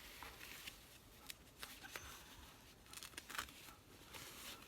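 Faint rustling of fabric with a scattering of light clicks and taps, a small cluster of them about three seconds in, as a reborn doll and its clothes or blanket are handled.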